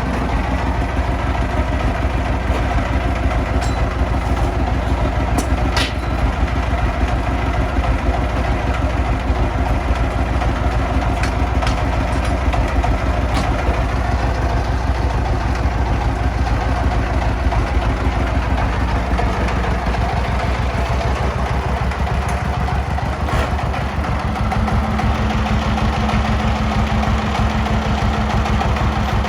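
Diesel engine running steadily, a rapid even chugging, with a few faint sharp clicks. A steady higher hum joins near the end.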